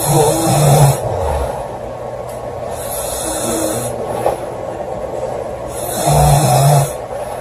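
Woman snoring loudly: two long buzzing snores, one at the start and one about six seconds in, with a quieter breath between them.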